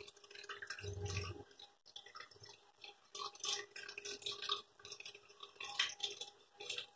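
Light water dripping and splashing, a scatter of small drips, with a soft low thump about a second in.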